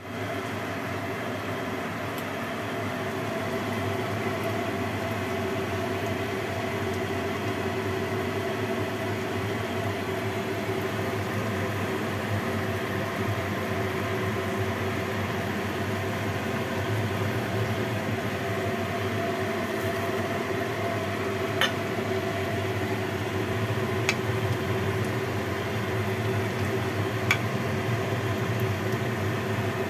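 A steady mechanical kitchen hum, like a motor or fan running, over soup simmering in a glass pot on a gas burner. A few sharp little clicks or pops come in the last third.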